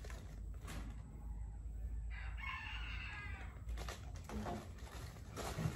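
A rooster crowing once, about two seconds in, a single call lasting a second and a half.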